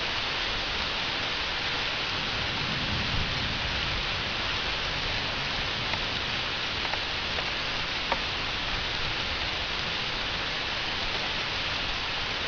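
Steady heavy rain from a thunderstorm, an even hiss with a few single drip ticks about halfway through.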